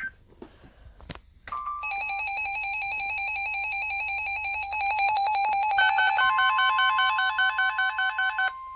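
Weather radio alert alarms going off for a severe thunderstorm warning. Fast pulsing electronic beeps start about two seconds in, a second, higher beeping joins near the six-second mark, and a steady alert tone starts just after. The beeping stops near the end while the steady tone carries on.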